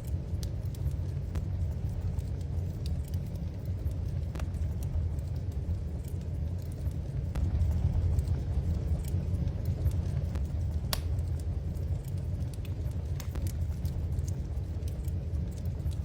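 Wood fire in a fireplace crackling, with sporadic small pops over a steady low rumble, and one sharper pop about eleven seconds in.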